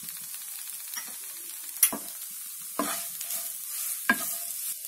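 Wooden spatula stirring and scraping spiced mashed-potato samosa filling in a non-stick kadhai, over a faint steady sizzle of the filling cooking on low heat. Three sharp knocks against the pan, about two, three and four seconds in; the first is the loudest.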